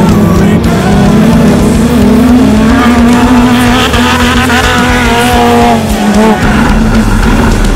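Off-road race car engine running hard at high revs, its pitch wavering up and down with the throttle, with a brief drop about six seconds in.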